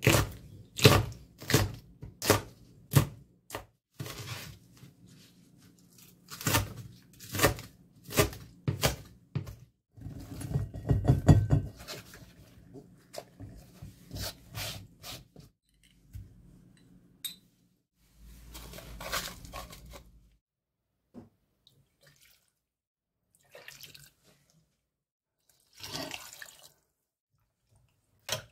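Chef's knife chopping green chili peppers on a plastic cutting board, about two strokes a second. It is followed by a louder clatter as the chopped vegetables go into a pot, then a stretch of pouring liquid as water is added for a vegetable stock.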